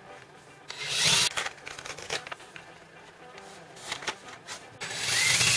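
Power drill boring pilot holes through the wall into the studs for the mount's lag bolts: a short burst of drilling about a second in, then a longer run near the end with the motor's whine rising.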